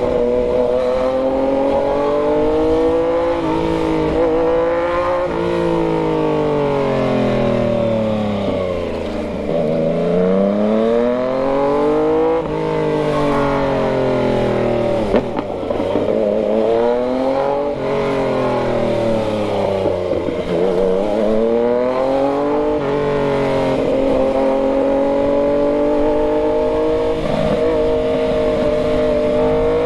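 Yamaha MT-09's inline three-cylinder engine running under way. Its pitch falls slowly as it slows, rises again as it accelerates, and does this twice before holding a fairly steady pitch near the end.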